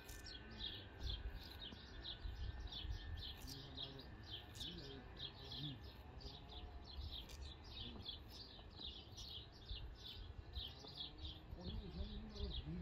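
A bird chirping over and over, short high notes about three or four a second, over a low rumble.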